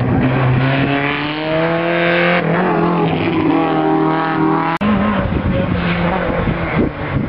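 Hill-climb race car engine revving hard as it accelerates past, climbing in pitch through one gear, an upshift about two and a half seconds in, then climbing again. The sound breaks off sharply a little under five seconds in, and a more distant car engine carries on.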